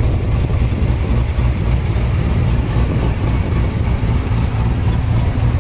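2016 Corvette Z06's supercharged 6.2-litre V8 idling steadily with a low, even rumble.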